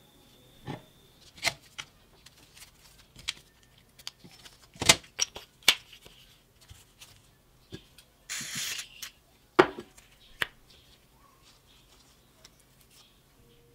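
Cast-metal air compressor pump parts being handled and fitted together by gloved hands: scattered light clicks and knocks, two sharper ones about five and nine and a half seconds in, with a brief scraping rustle just past eight seconds.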